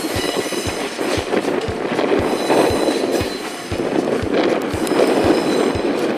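Loaded container flatcars rolling slowly through a freight-yard curve, their wheels knocking over rail joints about twice a second above a steady rumble, with a faint high wheel squeal.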